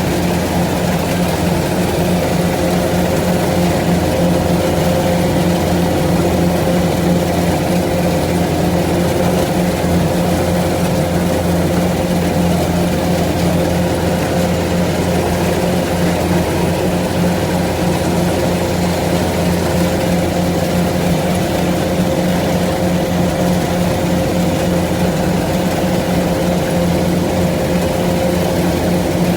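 Engine of a farm machine running steadily at a constant speed, with an even, unchanging hum.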